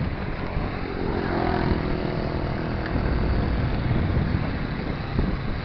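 Wind buffeting the microphone of a moving bicycle, with road traffic: a motor vehicle's engine is heard passing for a few seconds starting about a second in.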